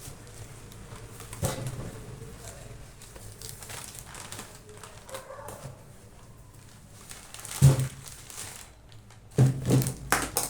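Books and their packaging being handled: rustling and crinkling with scattered knocks, the loudest a bump about three quarters of the way in and a quick cluster near the end.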